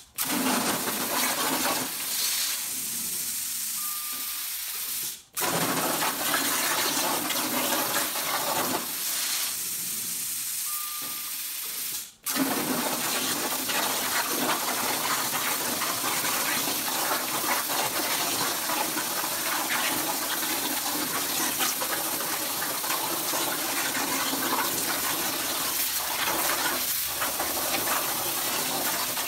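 CNC plasma torch cutting 16 gauge hot-rolled steel with a 45 amp tip: a steady, loud hiss of the arc and air. A short beep comes shortly before each of two brief stops, about five and twelve seconds in, after which the cut runs steadily on.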